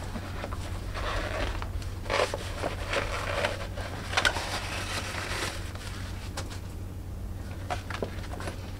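Shiny black patent thigh-high boot rustling and crinkling in irregular bursts as its shaft is gathered up and a bare foot is worked into it, over a steady low hum.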